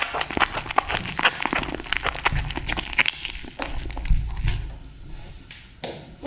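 Cat chewing fish up close: rapid wet crackling and crunching clicks that thin out after about four and a half seconds.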